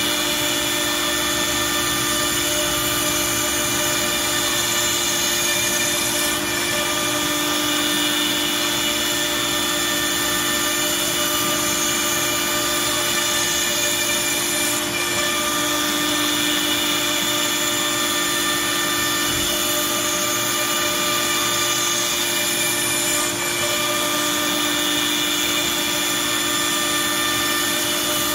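CNC router spindle running steadily while milling a cam-clamp profile into 1/2" MDF: a constant high whine over a steady rushing noise.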